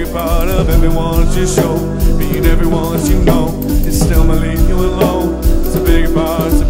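Background music: a song with a sung vocal over a band, with a steady bass line.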